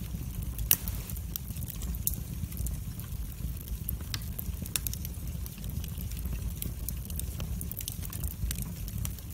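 Wood fire crackling, with irregular sharp pops and snaps over a steady low rumble. One louder pop comes just under a second in.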